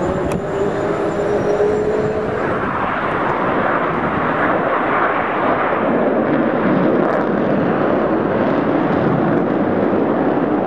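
Jet noise from a formation of Boeing F/A-18 Hornets flying past: a loud, steady rushing noise. A faint rising whine is heard in the first two seconds.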